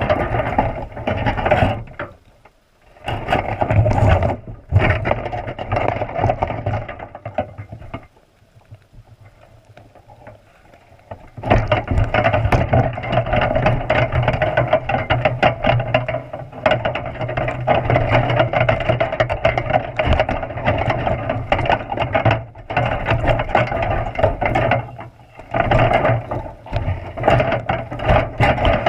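Wire box-style crab trap rattling and knocking underwater as a sea lion tugs at the bait inside it, heard muffled through a GoPro housing. The racket eases for a few seconds about a third of the way in, then resumes.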